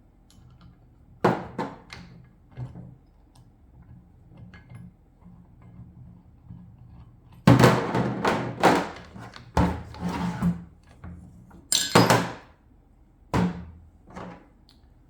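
Handling noises from swapping the sanding wheel on a Bauer surface conditioning tool: scattered sharp thunks, knocks and metallic clinks, busiest about halfway through and again a little later, with the tool's motor not running.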